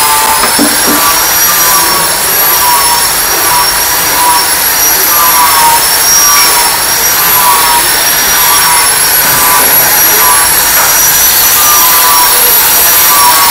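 Loud, steady machinery noise in a woodworking workshop, running evenly throughout with a high-pitched whine.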